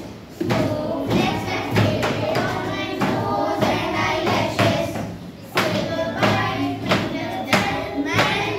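A group of children singing a rhyme together, with repeated thumps.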